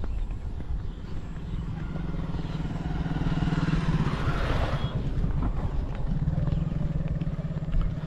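A small engine running steadily with a low, rapidly pulsing rumble. A rushing noise swells and fades between about three and five seconds in.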